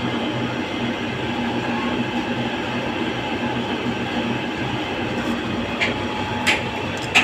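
Boring machine cutting a bore in a steel trolley frame plate: a steady mechanical drone with a low hum, and three short sharp metallic squeaks near the end.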